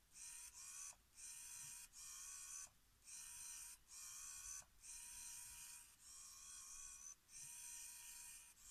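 PQ12 micro linear actuator's small motor whining faintly as it drives its rod in and out, tracking the bending of a flex sensor. It runs in short spurts of about a second, stopping and starting again about nine times.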